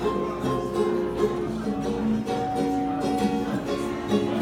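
Ukulele strummed, playing chords in a steady rhythm.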